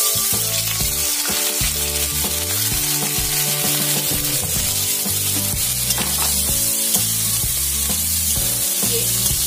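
Finely chopped onions sizzling loudly and steadily in hot oil in a kadhai, having just been tipped in, and stirred with a spoon.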